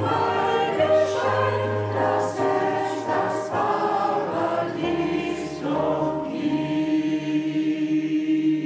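Mixed choir singing with digital piano accompaniment, settling about two-thirds of the way through into a long held final chord.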